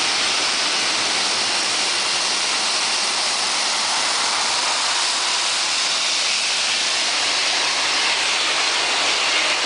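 Boeing 747-200's jet engines at taxi power passing close by: a loud, steady rushing noise of engine exhaust and jet blast, with a faint whine that fades out early.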